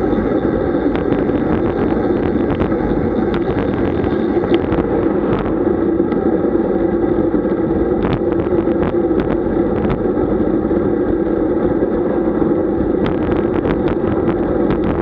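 Steady wind and road rush on the microphone of a camera riding along on a road bike, with scattered light clicks and rattles in clusters.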